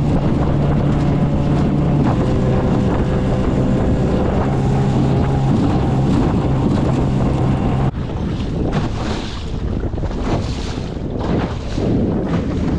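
Outboard motor of a small John boat running at a steady speed, under wind buffeting the microphone. About eight seconds in the motor sound stops abruptly, leaving gusty wind noise and water.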